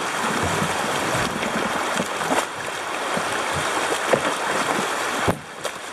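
River water rushing and splashing around a kayak's bow as it runs a shallow riffle, with irregular slaps and splashes against the hull. The rushing drops off suddenly a little past five seconds.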